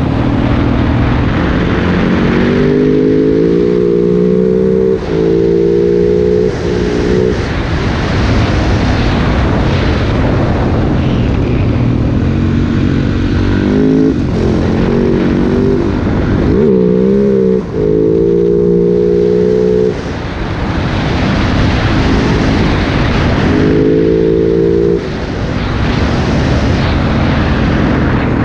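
Husaberg dirt bike engine pulling hard in several runs, its pitch climbing and dropping sharply at each gearshift or roll-off of the throttle, over a steady rush of wind noise.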